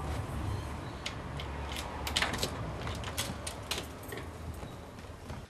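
Irregular mechanical clicking and clattering over a low steady hum, which cuts off suddenly near the end.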